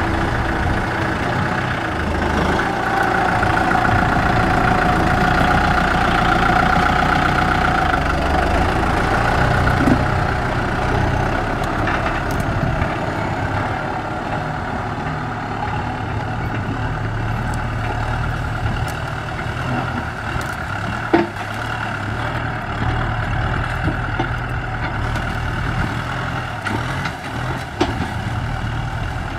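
Kubota M6040SU tractor's four-cylinder diesel engine running steadily under load while it pulls a disc plough through the soil, a little quieter after about ten seconds, with a few sharp knocks.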